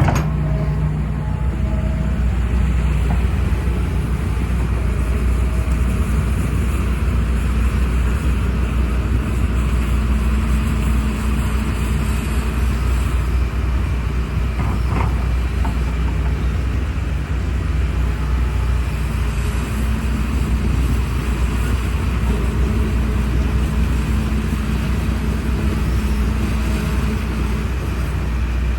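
Hydraulic excavator's diesel engine running steadily as the machine travels on its tracks, a continuous low hum.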